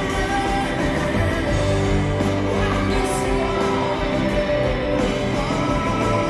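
Live rock band playing with male lead singing: electric and acoustic guitars, keyboards and drums, heard from within the audience in a hall.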